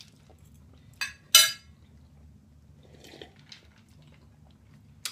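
Tableware clinking at a meal: two sharp, ringing clinks about a second in, a third of a second apart, then fainter clatter and one more click near the end.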